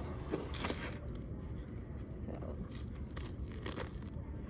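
Plastic takeout containers being handled and opened: a few scattered clicks and crinkles, over a low steady hum.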